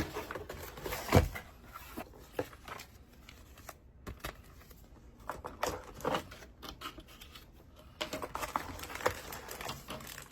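A box and its packaging being opened and handled by hand: irregular rustling and crinkling with scattered small knocks and clicks, busier near the end.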